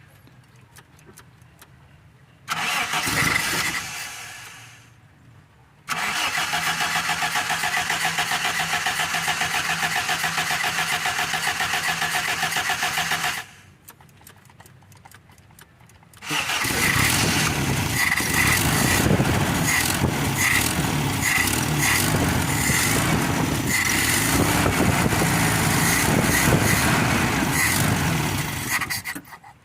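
Toyota Tamaraw FX's carbureted engine cranked on the starter in a hard start. A short crank catches briefly and fades, then a steady crank of about seven seconds does not fire. After a pause the engine catches and runs unevenly, cutting off near the end. The hard start comes from a dirty, frozen carburetor.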